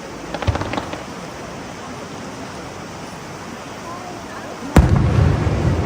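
Aerial fireworks: a quick crackle of small reports about half a second in, then a single sharp bang near the end followed by a long low rumbling echo. Crowd chatter and a steady outdoor hiss underneath.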